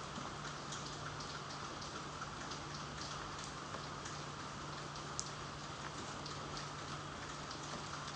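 Gentle steady rainfall, an even hiss with many small drops ticking on a surface and one sharper drip about five seconds in. A faint low steady hum lies under it.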